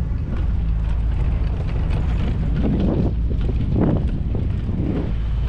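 Wind buffeting the microphone of a moving bicycle's camera over a steady low rumble of riding on cobblestones, with a few louder surges in the second half.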